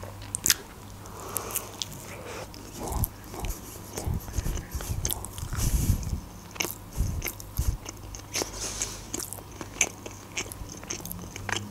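Close-miked chewing of a mouthful of burger, with many short, sharp wet clicks and smacks from the mouth.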